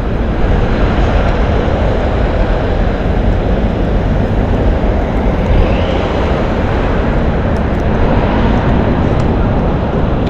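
Steady rumble of busy city street traffic, passing vehicles blending into a continuous noise.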